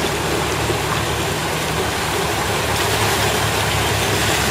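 Engine of a Toyota pickup songthaew running at low speed as it drives through floodwater close by, with water sloshing and splashing around its wheels.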